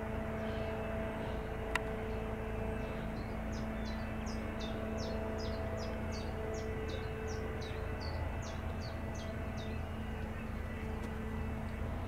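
Airbus Helicopters EC135 heard from a distance as it hovers and sets down: a steady low rumble with a few held tones. A small bird chirps in a quick run of short calls, about three a second, from about three seconds in until about ten seconds, and there is one sharp click just before two seconds in.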